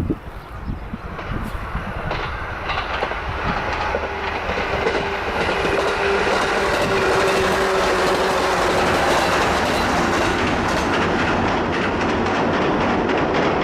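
JR Mito Line electric train passing, growing louder over the first six seconds and then running by loud and steady.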